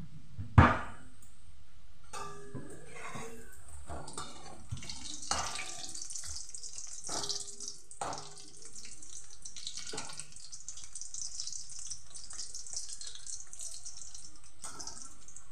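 Chicken cheese balls deep-frying in hot oil, the oil sizzling and bubbling with a steady hiss. A sharp knock sounds about half a second in, and a metal slotted skimmer scrapes and taps against the pan as the balls are turned, mostly in the first two thirds.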